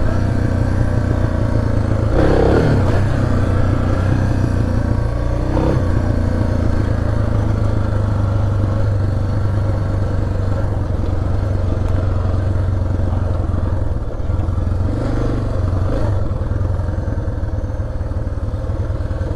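Suzuki DR650's single-cylinder four-stroke engine running while the bike is ridden, with the revs briefly rising about two seconds in and again near six seconds.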